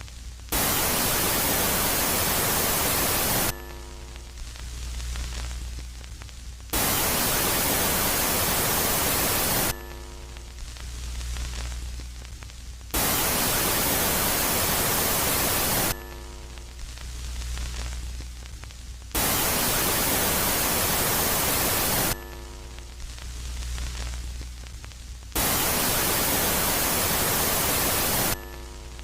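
Space-sound track presented as the sound of Jupiter's moon Megaclite, switching between a loud phase and a quiet phase: five blasts of loud static hiss, each about three seconds long, come about every six seconds. Between them a quieter low hum swells and fades, with a brief buzzing tone as each hiss cuts off.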